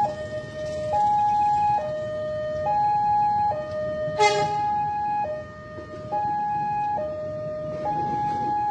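Railway level-crossing warning alarm sounding with the barriers down: an electronic two-tone signal alternating high and low, each tone held just under a second, warning of an approaching train. A short horn beep cuts in about four seconds in, over steady traffic noise.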